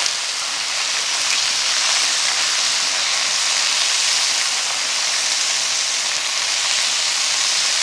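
Bacon sizzling steadily on a hot Blackstone tabletop flat-top griddle, a continuous frying hiss.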